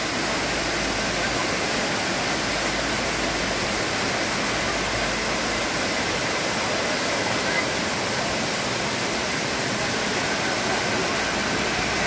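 A waterfall and its rocky stream rushing and cascading over boulders close by, a steady, even rush of water.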